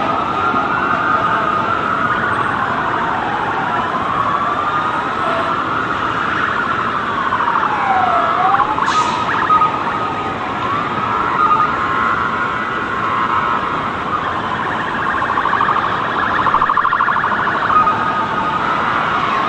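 Several emergency-vehicle sirens wailing at once, their rising and falling pitches overlapping, with a faster warbling siren tone among them.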